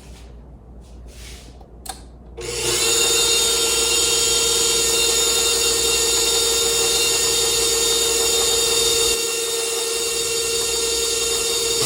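KitchenAid Pro 600 stand mixer switched on with a click and running steadily with a motor whine, on a test run just after its gears were regreased and its planetary assembly replaced. It gets a little quieter about nine seconds in.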